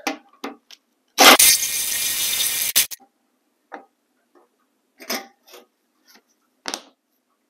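Cordless ratchet with a 10 mm socket on a long extension running for under two seconds, spinning out a fender bolt. A few light metal clicks and taps follow.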